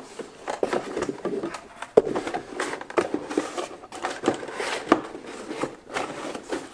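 Cardboard packaging being handled and pushed back into a keyboard box: irregular rustling and scraping with sharp knocks, the loudest about two seconds in.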